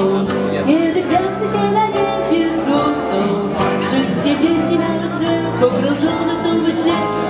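A woman and two children singing into microphones over amplified backing music with a steady beat.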